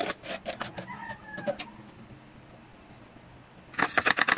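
Crinkling and rattling of a plastic breadcrumb packet being handled, in a spell of clicks at the start and a denser burst near the end. About a second in, a short falling bird call, like a chicken's, sounds in the background.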